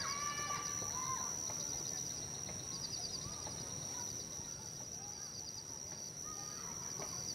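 Outdoor nature ambience: scattered short bird calls over a steady high-pitched drone with repeated rhythmic chirping trills.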